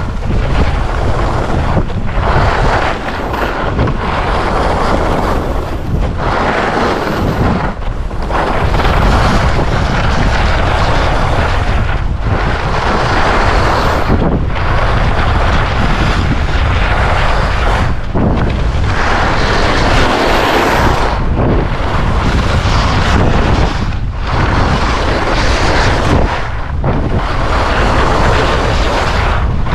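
Skis carving down hard-packed spring snow, a rushing scrape that swells and eases with each turn every couple of seconds, over a steady low rumble of wind on the microphone.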